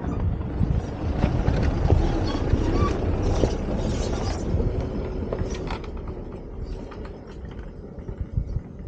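Isuzu D-Max four-wheel drive passing at low speed over a rough stony dirt track: engine running and tyres on loose stones, with scattered clicks. It fades steadily as the vehicle moves away.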